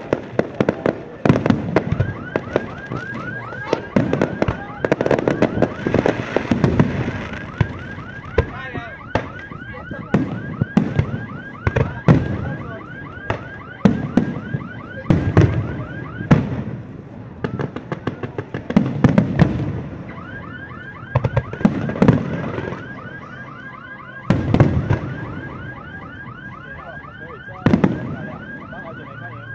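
Aerial firework shells bursting overhead in a dense barrage of booms and sharp bangs. Through much of the barrage, from about nine seconds in, a high, rapidly repeating electronic chirping sounds alongside the blasts.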